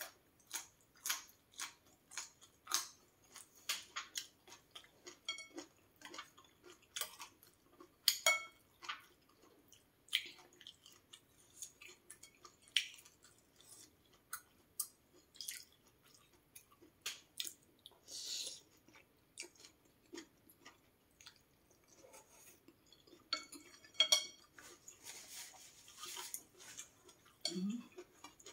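A person eating: chewing and biting raw crunchy vegetables such as yardlong beans with many irregular sharp clicks, and now and then a spoon and chopsticks knocking against the soup bowl.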